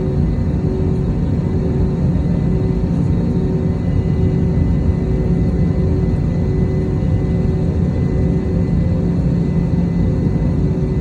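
Cabin noise inside an Airbus A321neo: a steady low rumble from the engines and cabin air, with a constant hum over it.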